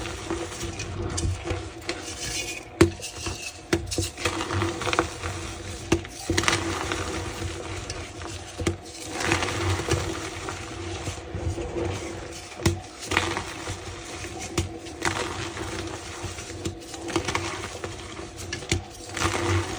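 Reformed block of gym chalk being crushed: irregular crumbly crunching with frequent sharp cracks and snaps.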